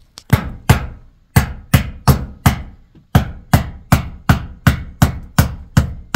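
Hammer blows in a steady rhythm, about fifteen sharp strikes at two to three a second, with short breaks about a second in and about three seconds in.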